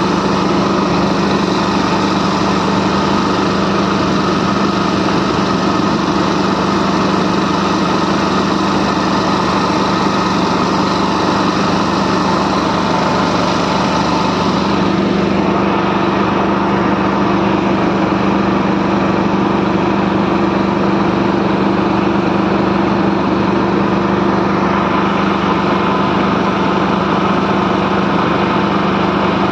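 Small boat engine running steadily, heard from aboard the boat under way; its tone shifts slightly about halfway through.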